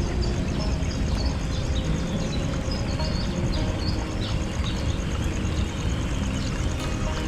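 Small birds chirping in short falling notes over a steady low rumble, with a fast, even high-pitched pulsing throughout.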